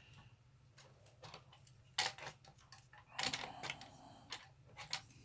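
Hard plastic and metal clicks and knocks of a CPU cooler being handled and positioned on a motherboard. There is a sharp click about two seconds in, a short clatter of clicks a second later, then a few lighter ticks.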